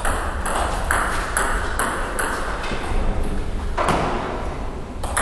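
Table tennis ball clicking off paddles and the table in a rally, about two hits a second, then a short pause and a sharper hit near the end.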